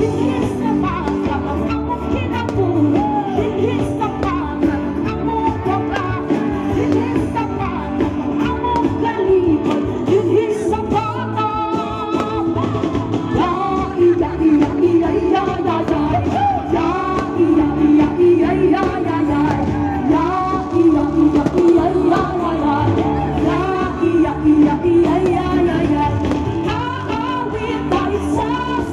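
Music: a song with a singing voice over steady instrumental backing.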